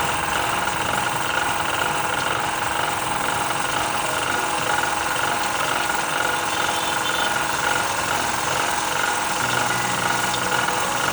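Steady mechanical running noise, like an engine running, with a low hum coming in about nine seconds in.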